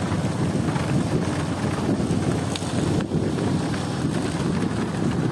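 Steady wind buffeting the microphone over a low, even rumble of movement, recorded while following close behind a racing bullock cart on a dirt road.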